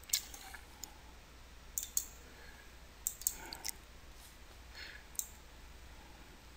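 Computer mouse button clicks: a scattering of sharp single clicks, with a quick run of four about three seconds in, over a faint steady low hum.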